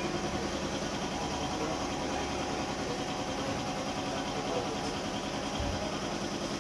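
An engine running steadily at idle, with an even, unchanging level.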